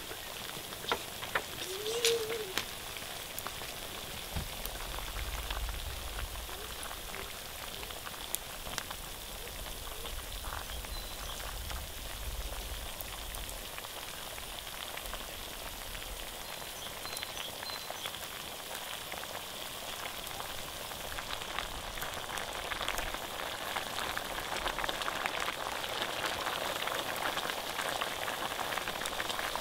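Food frying over a fire, a steady crackling sizzle with many small pops, growing louder over the last third.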